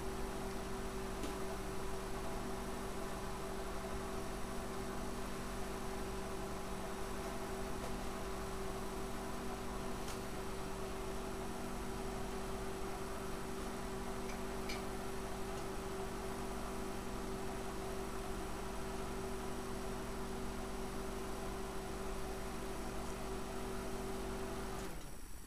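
Steady electrical hum with a constant hiss underneath, holding one pitch with no change, then cutting off suddenly near the end.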